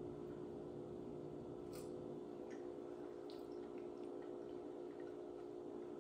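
Quiet kitchen room tone with a steady low hum, broken by a few faint clicks of a fork against a plate as the meal is eaten.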